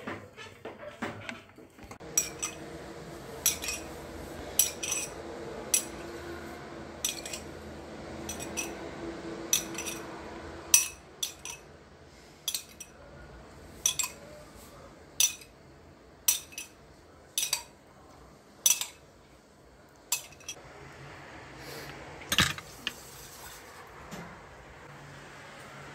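Metal spoon clinking against glass, a sharp clink roughly once a second, as milk is spooned from a drinking glass and spread over a cake in a glass baking dish. In the first couple of seconds a wire whisk is scraping round a pan of pudding.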